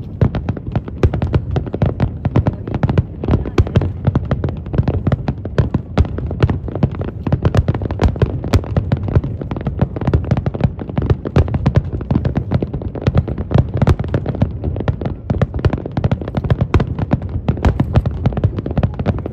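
Fireworks going off: a dense, continuous run of rapid pops and crackles with heavy low thuds underneath.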